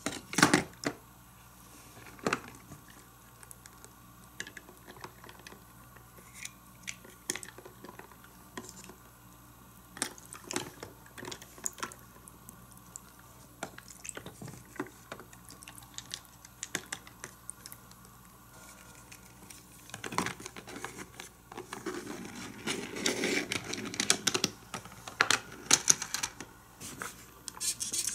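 Small plastic clicks and taps as a die-cast toy car is handled against a plastic playset, with some water swishing as the car is dipped into a water cup. The clicks are scattered, then come thicker and busier for a few seconds near the end.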